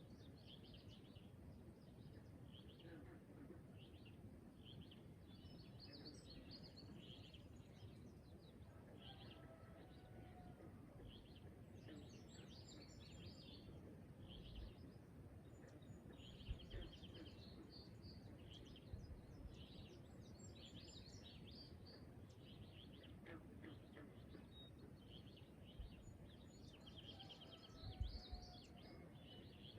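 Faint morning bird chorus: a steady run of short buzzy chirps about once a second, with higher chirps mixed in, over a low rumble. A few low bumps stand out, around the middle and near the end.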